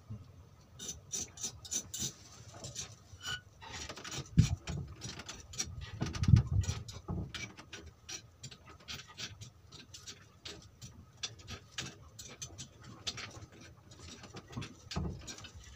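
Fishing reel clicking as it is worked, a run of short uneven clicks, with two heavier thumps about four and six seconds in.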